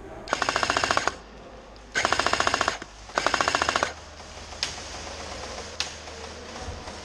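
Airsoft M249 machine-gun replica firing three short full-auto bursts of rapid, evenly spaced shots, followed by two single sharp cracks.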